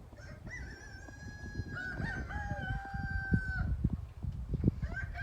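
A rooster crowing: one long drawn-out crow of about three seconds, with a second crow starting near the end. Scattered low knocks sound underneath.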